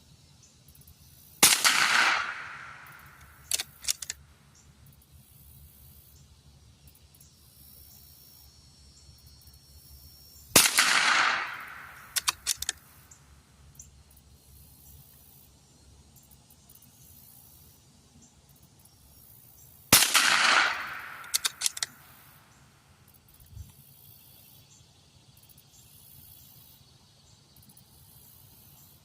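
Three shots from a Ruger American .22 Long Rifle bolt-action rimfire, about nine seconds apart, each ringing off over about a second. A second or two after each shot comes a quick pair or cluster of metallic clicks as the bolt is worked to chamber the next round.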